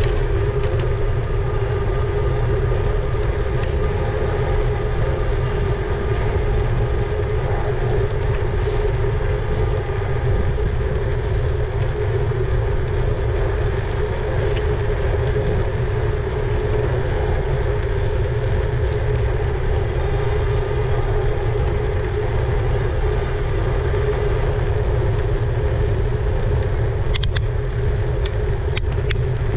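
E-bike under way: a steady motor hum over a heavy low rumble of wind and road noise on the microphone, with a few light clicks near the end.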